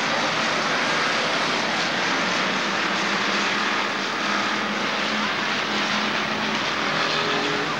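A pack of street stock cars racing on a dirt oval, their engines running together at racing speed in a steady, continuous din.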